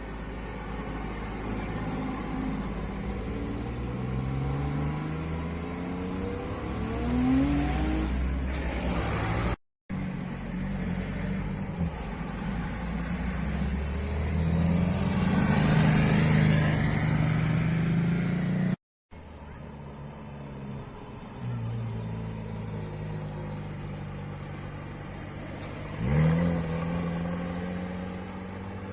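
Tuned cars' engines and exhausts running, accelerating and revving in pitch, in three short scenes joined by two abrupt cuts. One quick, sharp rev comes near the end.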